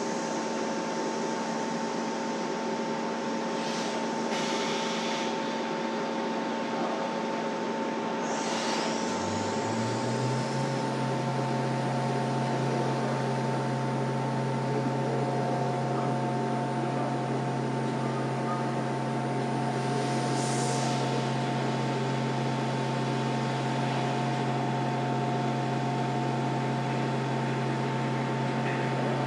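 CNC vertical milling machine at work, with a steady machine hum throughout. About nine seconds in the spindle's pitch rises, then it runs at a steady pitch as the cutter mills the workpiece with coolant spraying, with a few brief swishes.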